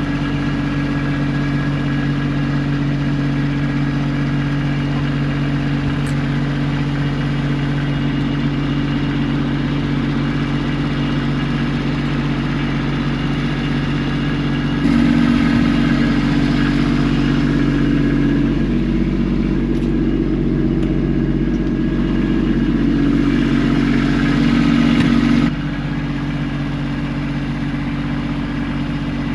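Vehicle engine idling steadily. About halfway through it gets louder and a hissing, whirring sound joins it for about ten seconds, then cuts off suddenly, leaving the idle.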